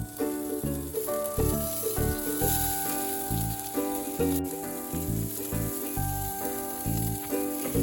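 A beef burger patty sizzling as it cooks, a steady hiss under background music with a melody and bass notes.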